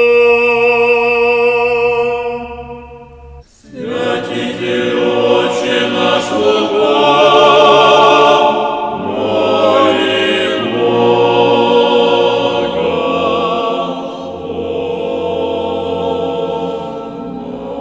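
A held sung note fades out about three seconds in, then a church choir starts singing unaccompanied, Orthodox chant in several voices with a wavering pitch.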